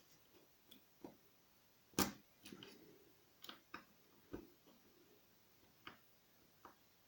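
Scattered small clicks and taps as a pin-tumbler door lock cylinder and its parts are handled during reassembly, about nine at irregular intervals, the loudest about two seconds in.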